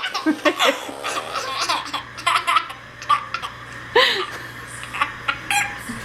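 A toddler laughing in repeated short bursts, with more laughter mixed in.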